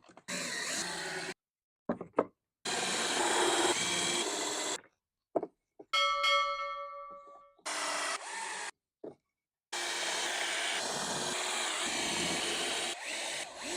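Power drill driving screws into pallet wood in several runs of one to four seconds, each stopping abruptly. About six seconds in, a single ringing tone fades away over about a second and a half.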